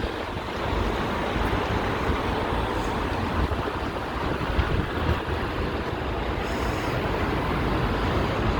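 Steady rumble and rushing noise of a moving vehicle.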